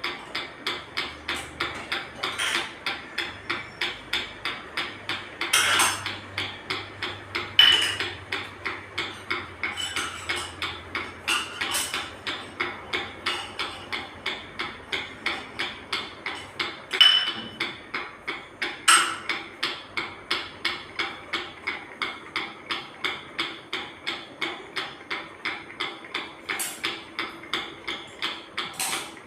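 New ceiling fan making a steady rhythmic ticking, about two ticks a second, with a few louder knocks in between.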